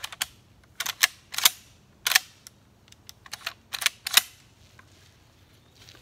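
A string of about nine sharp mechanical clicks, several in quick pairs, from handling a Pointer FT4 semi-automatic shotgun. They stop a little past the middle.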